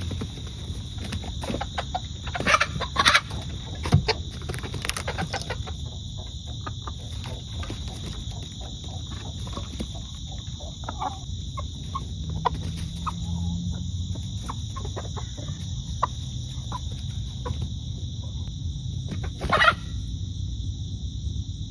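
Backyard chickens clucking and squawking as a Barred Plymouth Rock rooster chases the hens, with a cluster of loud squawks a few seconds in and another loud call near the end. Underneath runs a steady high drone of insects.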